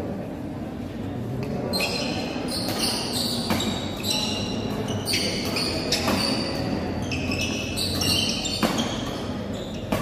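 Badminton doubles rally: sharp racket strikes on the shuttlecock and squeaking shoes on the court mat, starting about two seconds in and repeating irregularly about once a second, echoing in a large hall.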